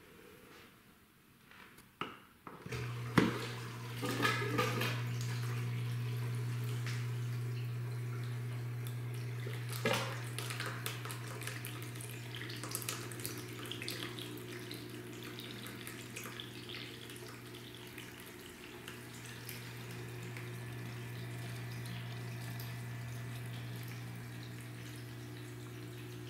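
Submersible aquarium pump starting about three seconds in and then humming steadily, while old blue coolant flushed out of a PC watercooling loop pours from a clear tube and splashes into a bucket. There are a few knocks just after the start and again about ten seconds in.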